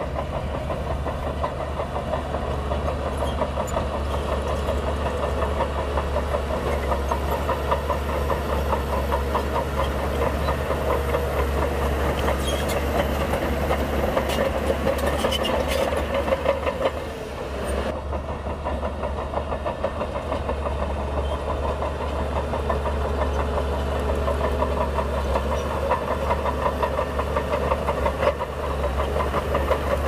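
Shantui crawler bulldozer's heavy diesel engine running steadily with a rapid knocking clatter. It dips briefly a little over halfway through.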